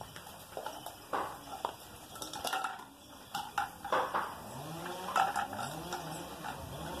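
Scattered light metallic clinks and rattles from wire birdcages and their metal feed cups.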